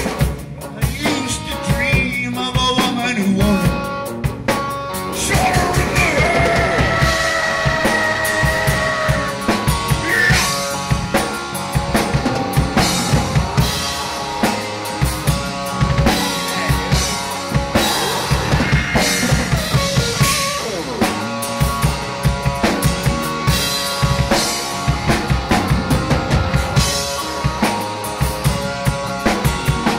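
Metal/hard rock song with a drum kit keeping a steady beat of bass drum and snare under a full band, with long held, bending melodic notes over it through the middle.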